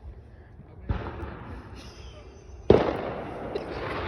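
Two firework bangs about two seconds apart, the second louder, each followed by a hissing crackle.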